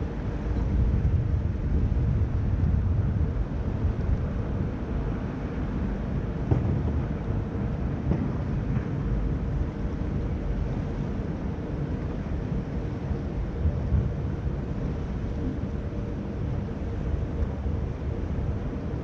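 Low rumble and steady hum of a large cruise ship's machinery as it manoeuvres close alongside a quay, with wind gusting on the microphone.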